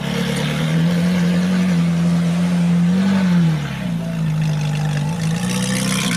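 Ferrari 458 Italia's V8 engine idling steadily, its pitch rising briefly and dipping back near the middle before settling.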